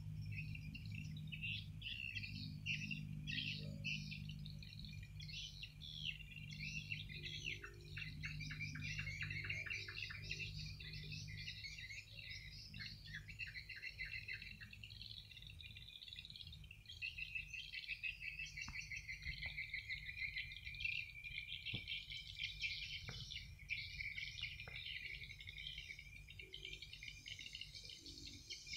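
Night chorus of crickets and other insects: dense, continuous high chirping and trilling, with fast pulsed trills standing out about a third and a half of the way in. A faint low hum sits under the first third.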